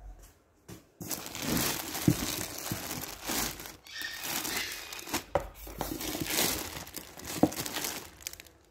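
Clear plastic polybags around packed t-shirts crinkling and rustling as a hand moves them about inside a cardboard box. It starts about a second in, with irregular sharp crackles, and dies away just at the end.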